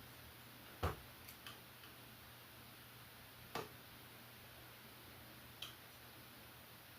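A handful of short, sharp clicks and taps from work on a Pfaff 230 sewing machine, irregularly spaced, the loudest about a second in, over a faint steady low hum.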